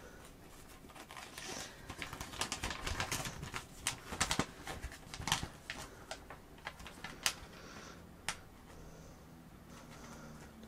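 Plastic toy packaging being handled and unwrapped at close range: a quick, irregular run of crinkles and sharp clicks, thickest in the middle, then a few last clicks before it settles.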